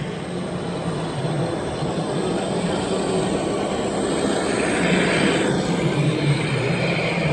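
Radio-controlled model construction vehicle running steadily: a low motor hum with a hiss over it that grows a little louder about five seconds in.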